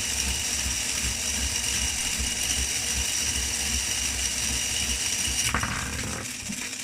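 3D-printed button testing rig running: a small motor whining steadily while its geared mechanism clicks and thumps as it presses the button again and again. The whine fades about five and a half seconds in.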